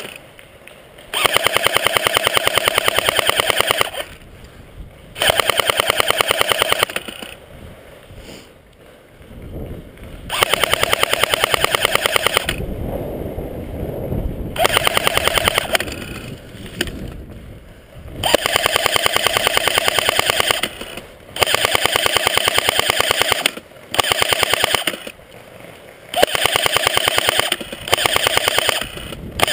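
Airsoft gun firing long full-auto bursts, a rapid even rattle of shots. There are about eight of them, each one to three seconds long, with short pauses between.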